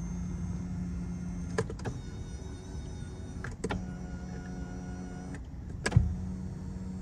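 Lexus power tilt-and-telescopic steering column motor running as the wheel is adjusted, a steady electric hum in three runs. It stops about a second and a half in, runs again from about three and a half to five and a half seconds, and starts once more with a sharp click near the six-second mark.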